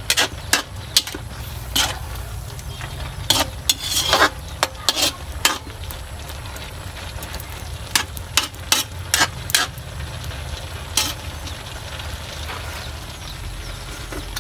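Metal spatula scraping and clanking against an aluminium wok while wild mushrooms are stir-fried, with a steady sizzle underneath. The strokes come in irregular flurries, thinning out after about eleven seconds.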